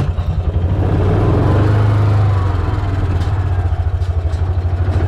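An engine starts up, revs up to a peak about two seconds in, then settles into a steady pulsing run.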